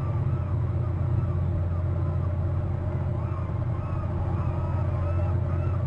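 Steady low drone of a motorboat engine carried across the water, with short high chirping calls of birds coming and going over it, more of them in the second half.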